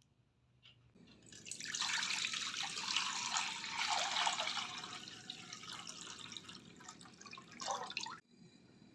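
Water running and splashing. It starts about a second in, eases off slightly, and cuts off abruptly near the end.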